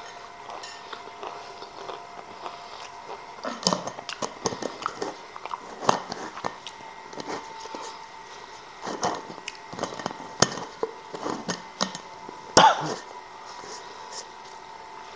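Crisp fried chips rattling and crackling against a glass jar as a hand rummages through them, in irregular sharp crunches.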